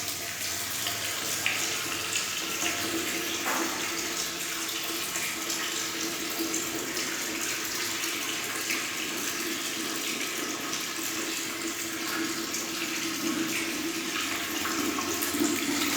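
Kitchen tap running a steady stream of water into the sink, starting abruptly as it is turned on.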